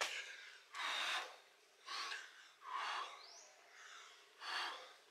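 A person breathing hard from exertion during burpees, loud exhales and gasping inhales about once a second.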